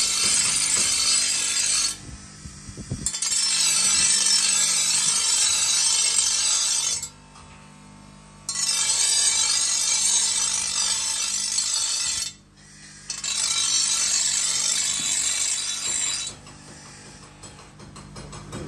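Power grinder working steel in passes of about three to four seconds, with short breaks between passes, over a steady low motor hum.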